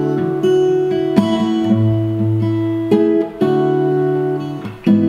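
Capoed acoustic guitar strummed, about five chords each left to ring before the next.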